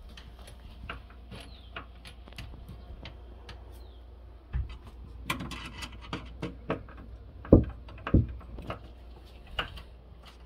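Scattered clicks, taps and knocks of hands working braided water-hose fittings under a kitchen sink, over a low steady hum, with a brief rustle a little past halfway and two heavier thumps about three-quarters of the way through.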